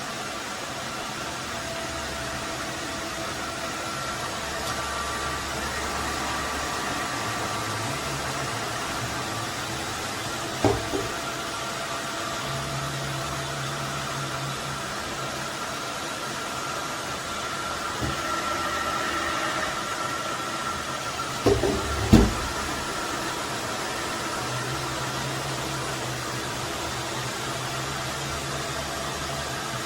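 Roborock F25 GT cordless wet-dry vacuum mop running steadily: a rush of air with a faint motor whine and a hum that shifts now and then. There is a knock about eleven seconds in, a lighter one near eighteen seconds, and a louder double knock about twenty-two seconds in.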